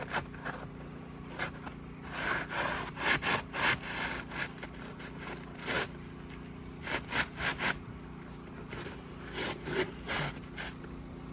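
Scraping and prying at an asphalt roof shingle, in irregular bunches of short rasping strokes over a faint steady hum. The shingle is firmly sealed down and is being worked loose.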